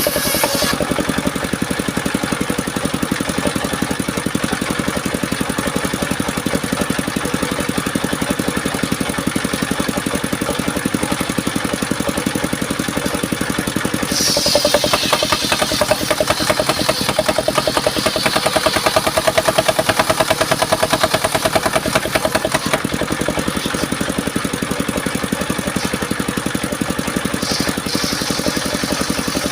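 Engine driving a homemade circular sawmill running steadily with a rapid even beat. About halfway through, for about eight seconds, it gets louder with a high rushing whine on top as the blade cuts through mahogany, then drops back to the plain running sound.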